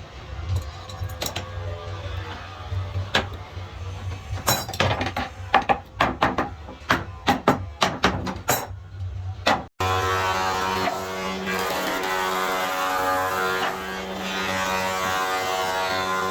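Workshop tool sounds: a run of sharp, irregular knocks for about ten seconds, then an abrupt switch to a steady motor drone.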